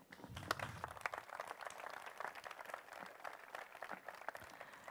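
Audience applauding with many scattered claps, fairly faint, thinning out near the end.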